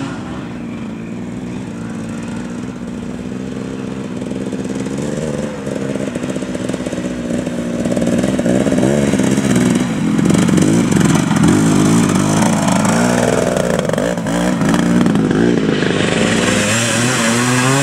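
Vintage enduro motorcycle engine running at low, wavering revs as the bike works through mud, growing louder as it comes close and passes.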